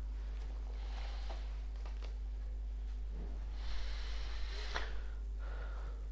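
Quiet room tone with a steady low hum, a few soft rustling noises and light clicks.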